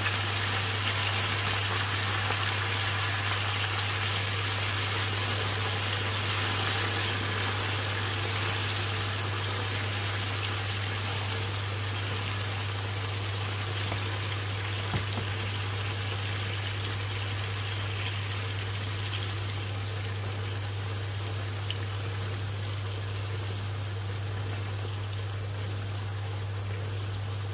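Boiled peanuts deep-frying in hot oil in a frying pan: a steady sizzle that gradually softens as the freshly added wet peanuts settle in the oil.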